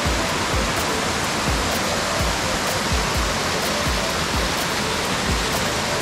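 Mountain waterfall rushing over rock: a steady, loud wash of falling water. Background music with a steady beat runs underneath.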